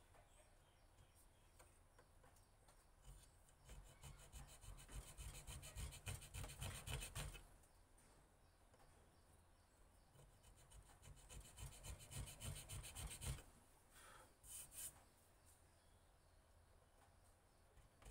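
A small hand chisel scraping into a wooden knife handle, cutting an anti-slip grip pattern. Two runs of quick scratching strokes, each several seconds long, then a brief pair of strokes near the end.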